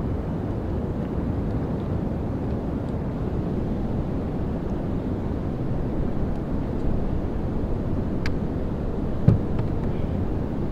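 Steady low rush of wind on the microphone and fast water running through river rapids, with a short click about eight seconds in and a louder knock a second later.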